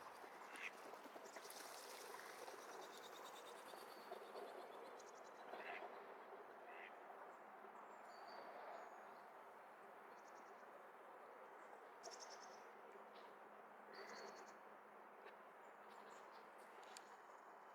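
Faint, steady rush of river water and wind, with brief high chirps of small birds every few seconds.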